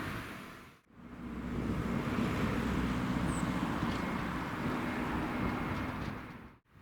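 A vehicle passing, heard as a steady rumble with a low hum. The sound cuts out abruptly about a second in and again near the end.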